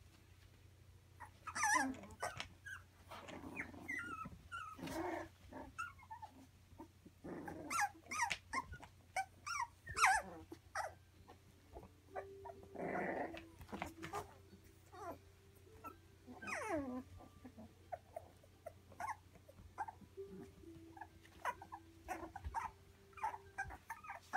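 Three-week-old Labradoodle puppies playing, giving short high-pitched yips and squeals on and off, the loudest about two and ten seconds in.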